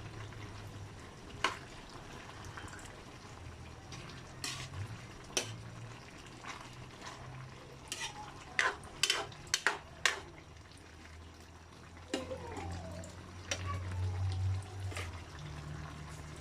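A cooking utensil clinking and scraping against a pot while papaya and moringa simmering in coconut milk are stirred. The clinks are scattered, with a quick run of about five of them near the middle, over a low steady hum.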